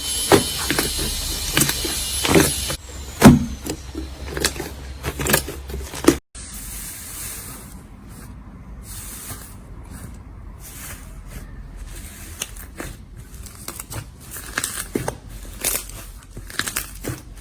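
Slime being squeezed, pressed and stretched by hand, giving many small wet pops, clicks and crackles. The sound changes abruptly about three seconds in and again after a brief dropout about six seconds in, as one clip gives way to the next.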